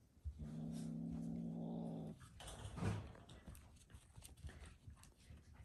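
Black kitten growling at a cat outside its cage: one steady low growl lasting under two seconds, followed by a brief hiss. It is a warning sound from a frightened kitten.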